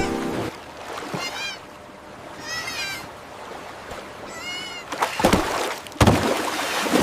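A kitten mewing three times in high, thin cries, then loud splashing into water about five seconds in, with a second, bigger splash a second later.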